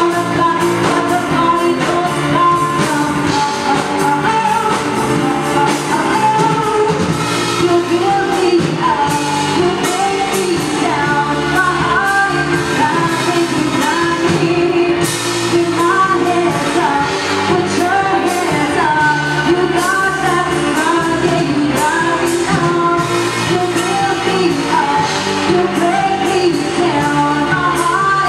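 Live pop band: a woman singing lead into a microphone over amplified electric guitar and drums, loud and continuous.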